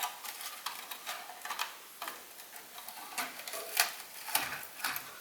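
Irregular light metallic clicks and taps of metal parts being handled at a dismantled rear car brake, with a louder click a little before the end.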